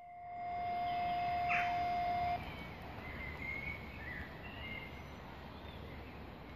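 A steady high tone holds for about two and a half seconds and stops abruptly. Birds chirp through it and after it, over a low outdoor hiss.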